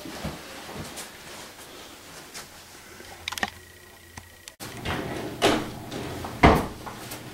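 Scattered light clicks and knocks of things being handled on a table, with a quick little rattle about three and a half seconds in and two louder knocks near the end, the second the loudest.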